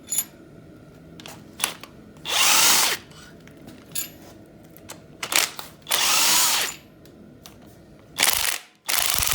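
Handheld power tool spinning a socket to back out the cylinder head bolts on a 5.3 L LS V8, in four short runs that each spin up and wind down, with small clicks of the socket and bolts between them.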